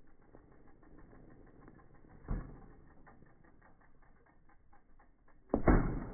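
Bicycle freewheel ticking evenly as the bike coasts, with a knock about two seconds in and a louder thump near the end.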